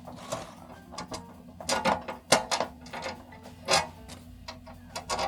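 Irregular mechanical clicking and clacking from tools being handled during metal drilling work, with a low steady hum underneath.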